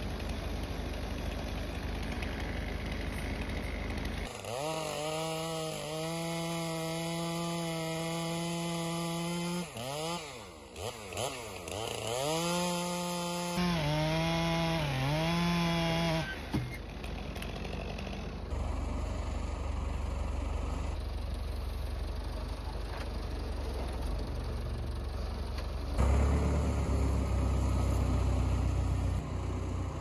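Stihl MS 462 two-stroke chainsaw running at full throttle while cutting through a Douglas fir log; its pitch sags and recovers several times as the chain bites, and it stops about two-thirds of the way through. Before and after the saw there is a low engine rumble from the logging tractor, which grows louder near the end.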